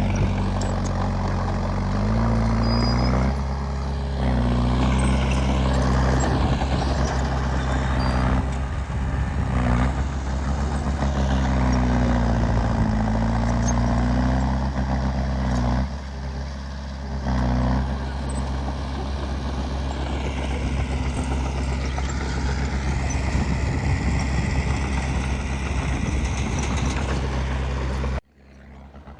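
Heavy diesel engine of earthmoving machinery running and working, its pitch rising and falling several times as the load changes. The sound drops away suddenly near the end.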